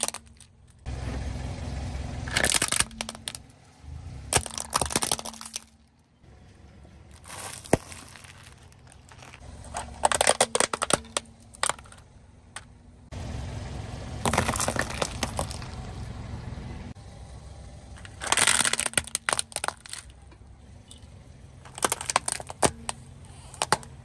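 Plastic toy cars and trucks cracking and snapping as a car tyre rolls over and crushes them, in several separate bursts of crackling. A low rumble of the tyre rolling on concrete runs between the bursts.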